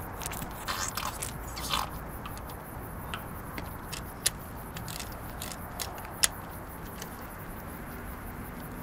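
Irregular small metallic clicks and scrapes of a door's deadbolt and knob being worked by a gloved hand, with two sharper clicks about four and six seconds in.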